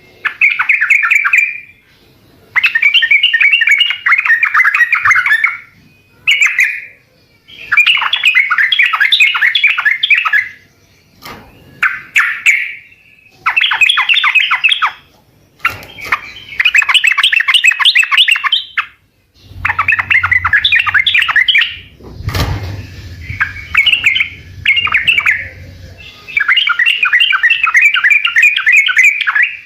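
Yellow-vented bulbul (trucukan) singing: repeated phrases of rapid notes, each lasting one to three seconds with short pauses between. A single thump with a low hum comes about two-thirds of the way through.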